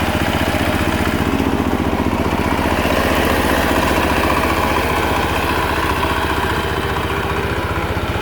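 Rice reaper's small engine running steadily with a fast, even pulse, getting slightly louder about three seconds in.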